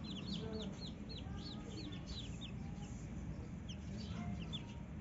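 Newly hatched chicks peeping: many short, high, falling peeps, coming thick in the first half and more sparsely later, with a broody mother hen clucking low underneath.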